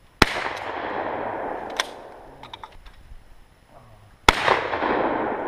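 Two gunshots from long guns about four seconds apart, each sharp crack followed by a long echo that dies away over a second or two.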